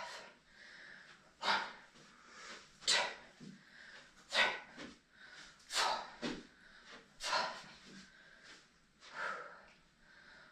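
A person breathing out hard in a steady rhythm, about one sharp exhalation every second and a half, from the effort of leg swings.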